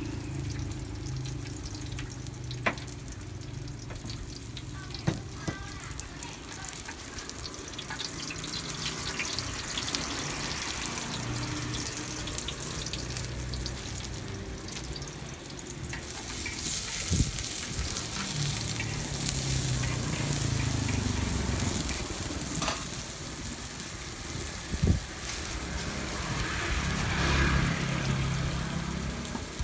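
Food frying in a pan, a steady sizzle that grows louder and brighter about halfway through, with a low hum underneath and a few sharp knocks, like a utensil against the pan.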